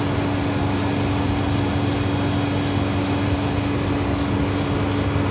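Cold-room refrigeration unit running: a steady mechanical hum with a constant tone over a noisy drone.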